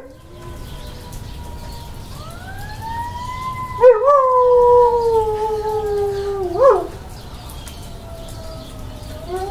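Carolina dog howling along to fire-truck sirens. A faint siren winds up, then about four seconds in the dog gives one long howl of nearly three seconds, slowly falling and ending in a short upward swoop. Another howl starts right at the end.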